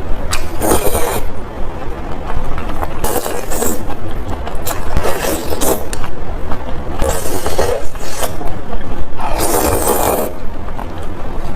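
Close-miked eating of spicy noodles: repeated noisy slurps of noodles, a few seconds apart, with smaller wet mouth and chewing sounds between them.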